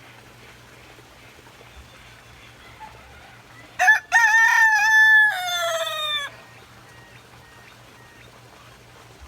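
A rooster crowing once, a cock-a-doodle-doo of about two and a half seconds that starts about four seconds in and falls away at the end.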